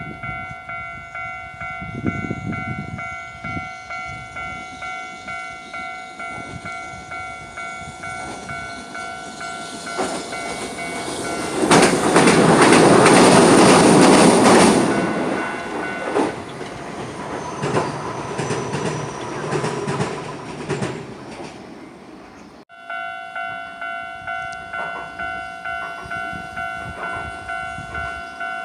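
Japanese level-crossing warning bell ringing in steady, regular strokes as a Hiroden (Hiroshima Electric Railway) train passes over the crossing, its running noise loudest from about 12 to 15 seconds in and then fading away. The sound cuts off abruptly a little after 22 seconds, and the crossing bell is ringing again.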